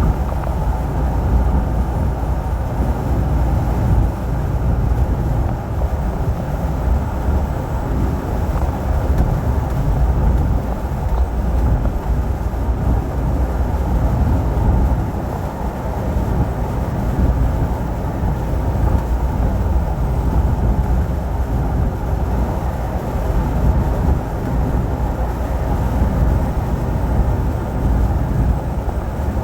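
Steady low rumble of engine and road noise inside a moving truck's cab, with no distinct events.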